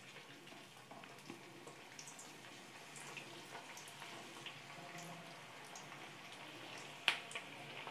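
Faint bubbling and sizzling of hot oil as noodle balls are dropped in one by one and deep-fry on a low flame, with a sharp click about seven seconds in.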